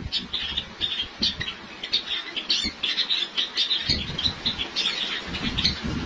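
A flock of white Java sparrows calling, many short high chirps overlapping throughout, with two brief low rumbles in the second half.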